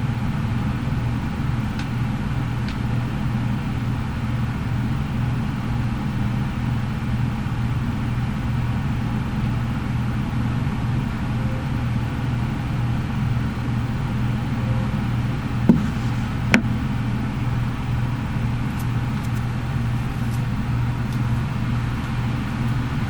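Steady low droning hum, with two short clicks about two-thirds of the way through.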